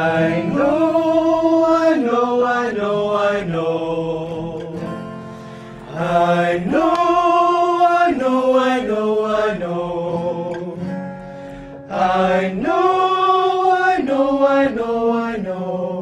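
Voice singing a vocal warm-up exercise: three repeated phrases of held notes stepping down a scale, each starting about six seconds after the last, with an acoustic guitar under it.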